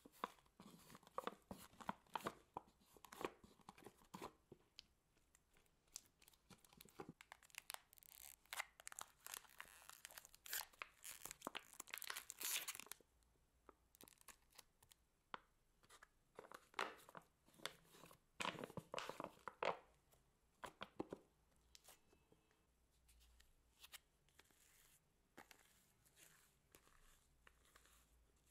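Slime mixed with foam beads being squished and stretched by hand: quiet crackling and crunching of the foam balls, with sticky tearing as the slime pulls apart. The crackle comes in busy spells, the densest after about eight seconds and another after about eighteen, and thins out near the end.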